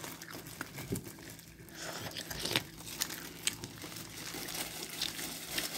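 Disposable plastic glove crinkling and rustling as a gloved hand handles a piece of fried chicken, with scattered small crackles.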